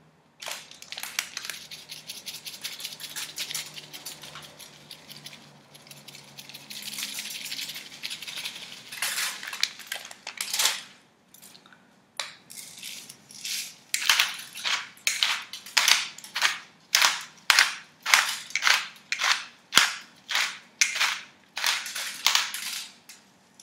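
Dried seasoning being crushed by hand over a whole fish: a dense crackling rasp for the first half, then regular crunchy strokes about two a second.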